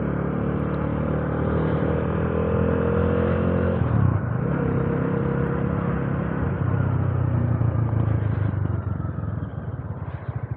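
Bajaj Dominar single-cylinder motorcycle engine under way, its pitch climbing steadily as it pulls, dropping sharply at a gear change about four seconds in, then rising again. Near the end the revs fall low and the engine's firing pulses come through one by one.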